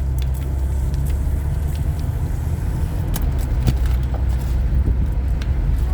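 Steady low road and engine rumble of a moving car heard from inside the cabin, with a few small clicks scattered over it.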